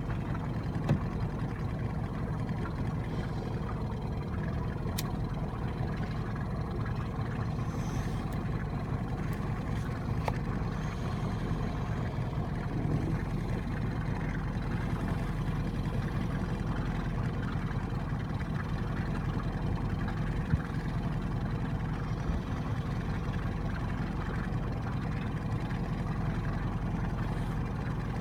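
Small boat's outboard motor running steadily, a low even rumble.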